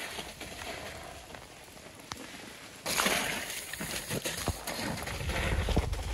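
Mountain bike riding down a wet, muddy forest trail: a steady hiss of tyres on wet dirt, stepping up sharply about three seconds in, with a few light knocks.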